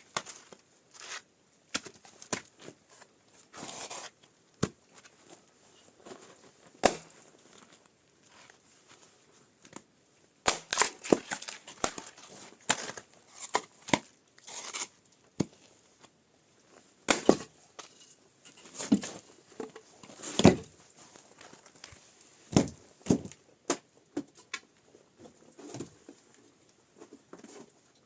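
Close-up handling noises: irregular crinkling and tearing with sharp clicks and knocks, busiest around the middle of the stretch.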